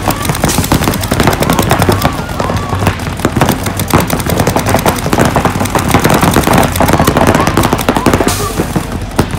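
Paintball markers firing rapid streams of shots, several guns at once, as a dense crackling rattle.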